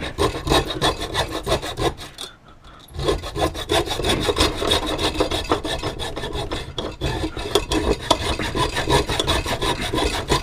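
A hand tool cutting through metal by hand, many quick back-and-forth strokes with a short pause about two seconds in.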